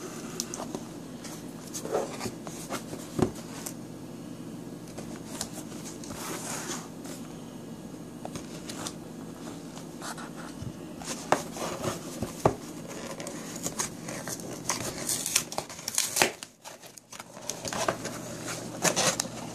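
A folding knife slicing and scraping through the tape and cardboard of a shipping box, with irregular scratching, tearing and sharp clicks as the box is handled and its flaps pulled open.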